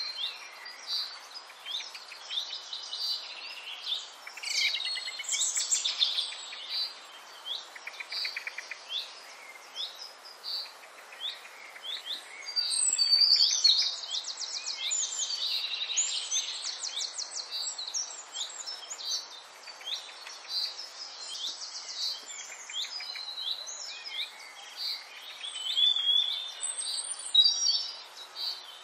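Several small birds chirping and singing, with rapid trills and quick rising and falling whistles that keep overlapping; a louder burst of trilling comes near the middle.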